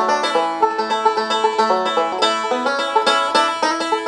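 Instrumental bluegrass-style music with rapid banjo picking, many quick plucked notes in a steady run.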